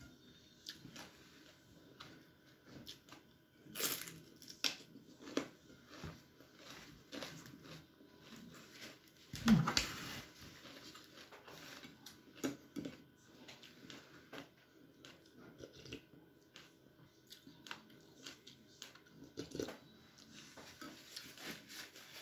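Close-up eating sounds: chewing a mouthful of papaya salad, with scattered small clicks and crackles from handling the food and plate. A louder knock comes about halfway through, and a paper tissue crinkles near the end as the mouth is wiped.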